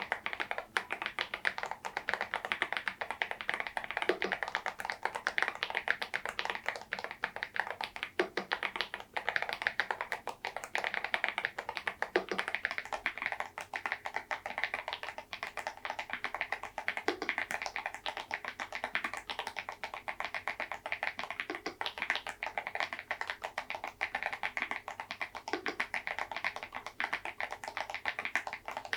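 Fast, continuous typing on an EPOMAKER Dynatab 75X mechanical keyboard fitted with tuned KTT Macaron Blue tactile switches and KDA-profile keycaps, with a deeper thud every four seconds or so.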